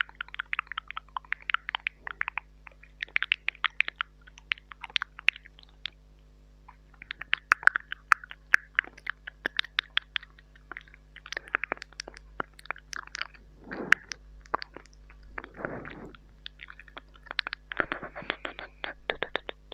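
Close-up ASMR mouth sounds into a mini microphone: rapid wet tongue clicks and lip smacks in quick clusters with short pauses, mimicking eating. Twice in the second half come longer, wetter slurping sounds.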